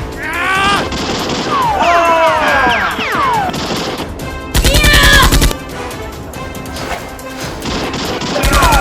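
A burst of rapid automatic gunfire, about a second long, dubbed in as a sound effect over background music. Earlier, several sharp tones fall in pitch, and near the end another burst of fire begins.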